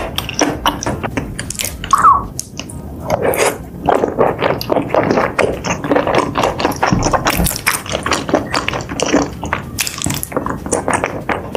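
Close-miked wet chewing and mouth smacking of a person eating chewy seafood in a thick spicy sauce, a rapid irregular run of sticky clicks and squelches.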